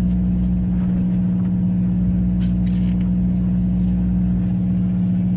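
Fishing boat's engine running with a steady, low hum that does not change. A couple of faint clicks come about halfway through.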